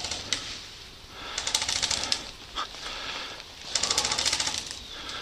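Airsoft rifles firing in rapid full-auto bursts, a fast rattle of shots: two bursts of under a second each, one about a second and a half in and one near four seconds, with a few single shots between.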